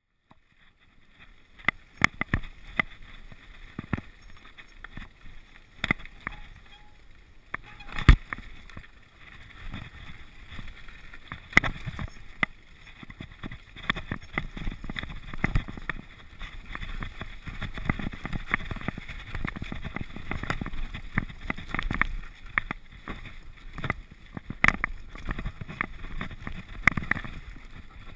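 Mountain bike riding down a dirt forest trail: a steady rush of tyre and wind noise with frequent irregular knocks and rattles as the bike runs over roots and rocks, the hardest knock about eight seconds in.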